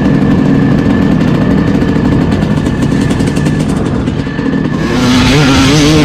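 Yamaha YZ250 single-cylinder two-stroke motocross engine, running steadily at light throttle and then opened up about five seconds in. It gets louder and revs with a rising, wavering pitch as the bike pulls onto the track.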